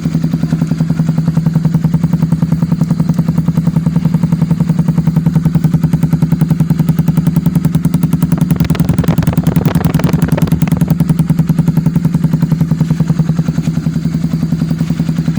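Honda XR250 Tornado's single-cylinder four-stroke engine idling steadily, its exhaust giving a fast, even train of sharp pulses. A brief rattly noise rises over it a little past the middle.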